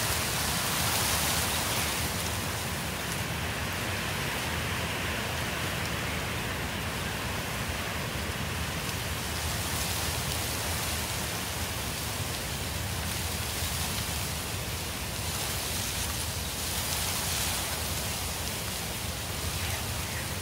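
Wind rushing through the leaves of the trees and buffeting the microphone: a steady hiss with a low rumble underneath, swelling briefly a few times as gusts pass.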